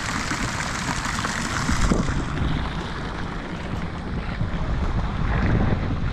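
Wind buffeting the microphone, a steady low rumble, with running water from a shallow fountain pool that fades out after about two seconds.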